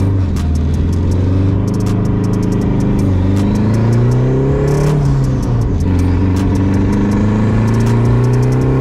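Turbocharged four-cylinder of a straight-piped Dodge SRT-4, heard from inside the cabin, pulling hard with rising pitch, dropping at a gear shift about five and a half seconds in, then pulling again. Sharp clicks and pops run over it. The owner says the engine is running lean, short of fuel on its new, untuned fuel system.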